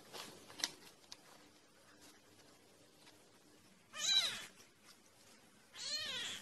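Tiny kitten meowing twice: a short high mew about four seconds in and a slightly longer mew that rises and falls near the end. A sharp click sounds under a second in.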